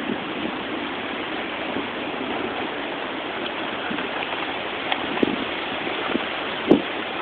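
Steady rushing noise of hurricane wind and heavy rain, with a couple of brief louder bumps near the end.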